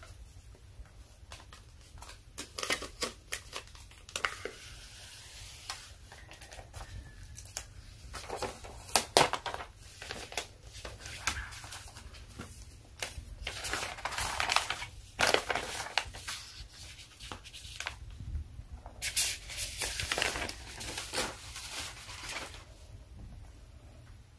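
Protective wrap being peeled and crinkled off a new iPad Pro tablet, in several bursts of crackling, crinkling and tearing, with light taps from the tablet being handled.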